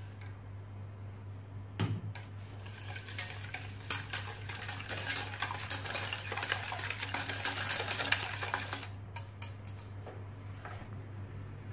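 Wire whisk beating egg yolks and sugar in a stainless steel saucepan, its wires rattling and scraping fast against the pan for about six seconds, over a steady low hum. There is a single knock about two seconds in.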